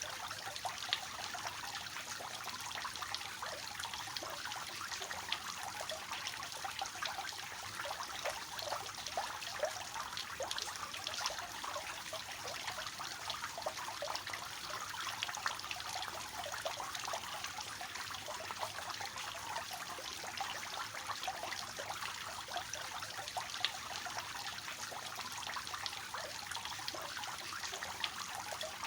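Water from a three-tiered fountain falling and splashing steadily into its basins, a constant light splashing hiss.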